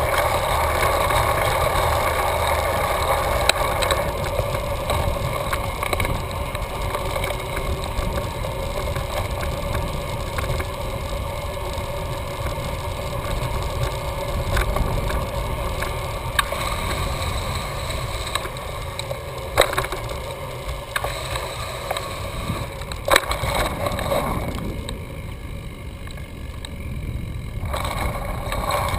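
Steady rolling noise of a Catrike Musashi recumbent trike on a paved road: tyre and drivetrain noise with a few sharp knocks. The noise eases off for a few seconds near the end.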